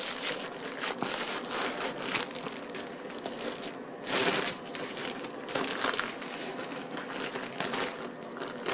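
Sandwich wrapper crinkling and rustling as a baguette sandwich is unwrapped by hand, with a louder rustle about four seconds in.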